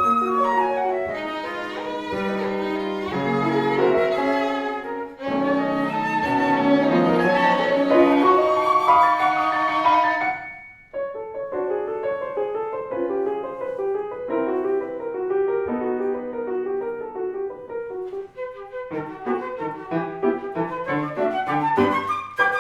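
Small chamber trio playing classical-style instrumental music, with piano and a melody instrument such as a violin or flute. The music breaks off briefly about halfway through and then goes on more softly.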